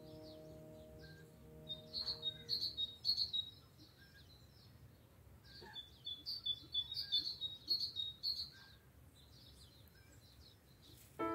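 Small songbirds chirping in quick, high twittering phrases, in two bouts separated by a few seconds of quieter background. Soft background music fades out over the first few seconds.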